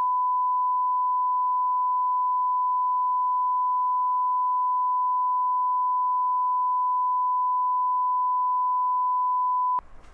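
Steady 1 kHz line-up test tone: a single pure pitch held at an even level, cutting off abruptly near the end.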